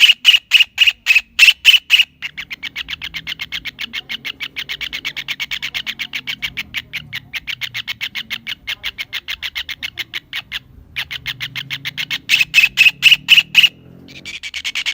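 Kingfisher calling: long, rapid chattering series of sharp, even notes, about ten a second, loud at first, quieter through the middle, then loud again near the end, with two short breaks.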